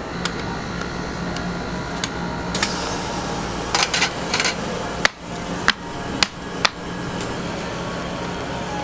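Metal tongs and scraper clinking and knocking against the steel freezing plate of a rolled-ice-cream griddle: scattered light taps, then a quick cluster, then four sharper knocks in a row.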